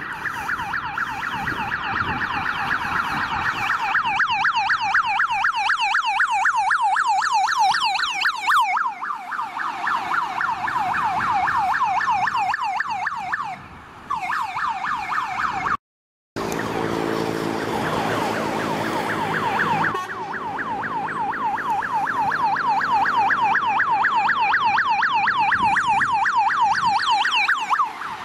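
Emergency vehicle electronic sirens, mostly Belgian police vans, yelping in fast rising-and-falling sweeps several times a second. The sound breaks off briefly at a cut about halfway through. After it, a van's engine can be heard accelerating under the siren.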